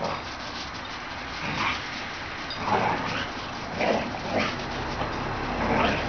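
Dogs at play, with one giving several short yips and whines over a few seconds.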